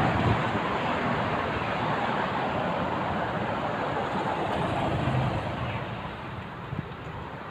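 Road and wind noise from a moving car, steady and then easing off about six seconds in.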